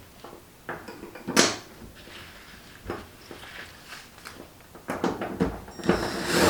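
Scattered knocks and clicks of car interior trim parts being handled and fitted, with one sharp knock about a second and a half in and a quicker run of knocks near the end.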